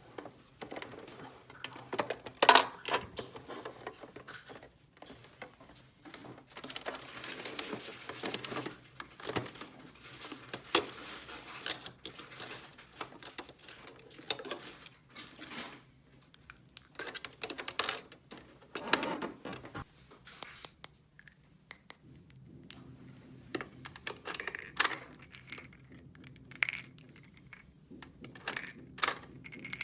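Small hard plastic toy pieces clicking and clinking irregularly as they are handled and set down, with now and then a longer rustle or scrape.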